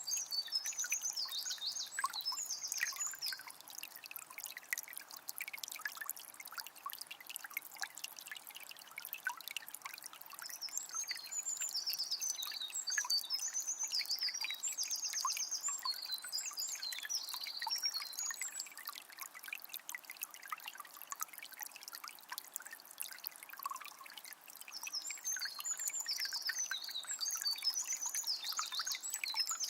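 Water of a small spring trickling and splashing steadily. A songbird sings three phrases of quick high chirping notes over it: at the start, through the middle, and again near the end.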